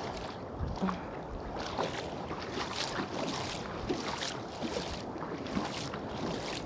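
Sea water splashing and sloshing in short, irregular bursts, as water is stirred by someone wading or swimming.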